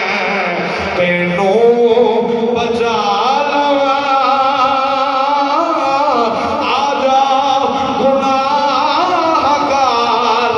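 A man singing a devotional verse in long, ornamented lines, his voice gliding and wavering between held notes.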